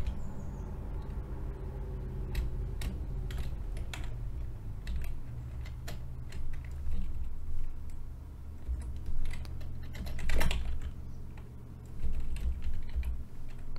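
Typing on a computer keyboard: irregular keystrokes in short runs with pauses between them, over a low steady hum.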